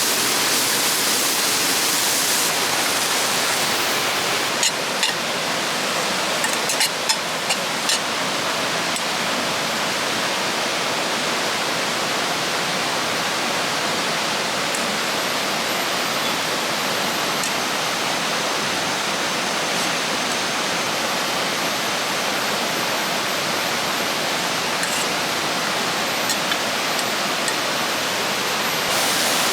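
River water rushing steadily, an even wash of noise, with a few sharp clicks a few seconds in and a faint thin high whine later on.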